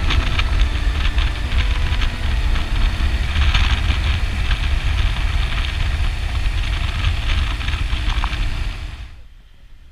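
BMW adventure motorcycle riding along a gravel road, heard from a bike-mounted camera, with a heavy low wind rumble over the engine and tyre noise. The sound drops away sharply about nine seconds in.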